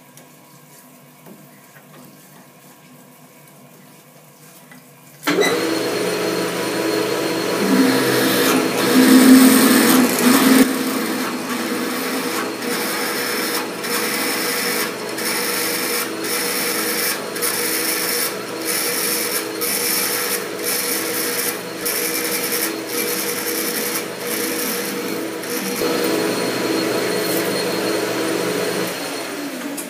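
South Bend lathe starting up about five seconds in and running under load as an 11.5 mm tapping drill in the tailstock chuck bores into the spinning arbor under flood coolant. A steady machine hum with a regular tick through most of the cut, easing off near the end.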